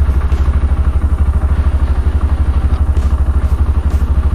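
Rusi Sigma 250 motorcycle engine idling close by with a steady, even throb, its idle raised slightly so it won't stall.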